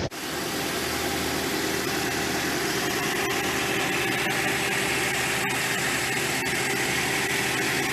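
2015 Toyota Corolla's 1.8-litre four-cylinder engine idling steadily.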